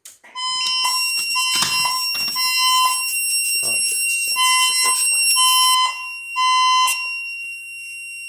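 Fire alarm system going into alarm from a manual pull station. A click at the start is followed by a loud, repeating electronic alarm beep, a bit under one a second, over a shrill, higher-pitched ringing that drops away about six seconds in.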